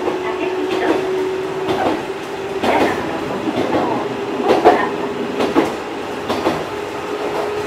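Fukui Railway 200 series tram-train car 202-2 running, heard from inside: a steady hum with the wheels knocking irregularly over rail joints, about once a second.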